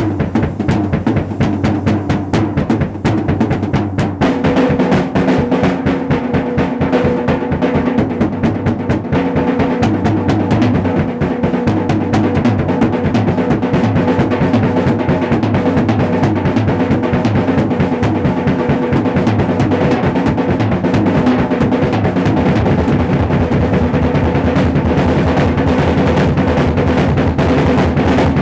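Drum kit solo: fast, continuous stick strokes on the toms and cymbals, dense and loud throughout.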